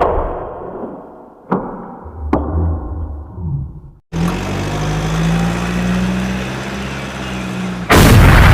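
Edited sound effects: a loud blast dying away, two sharp clicks, then after an abrupt cut a steady low engine-like hum, and another loud blast near the end.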